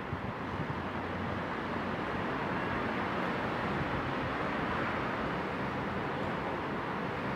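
Street traffic noise with a motorcycle riding past. The engine and road noise swell to their loudest about halfway through, then ease off.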